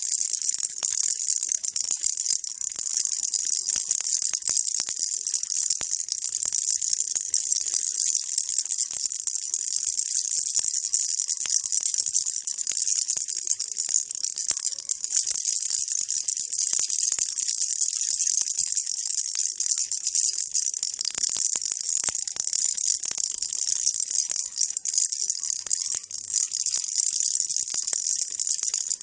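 Baby rattle being shaken without pause, making a dense, steady, high-pitched rattle of many small clicks, played as white noise.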